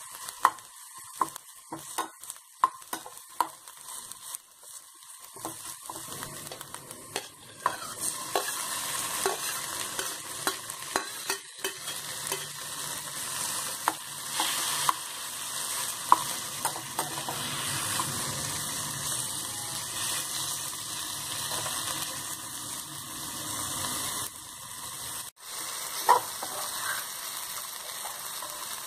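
Chopped onions and tomatoes sizzling in hot oil in a pan, with a spatula scraping and tapping against the pan as it stirs. Sharp taps come first, and the sizzling grows louder from about eight seconds in.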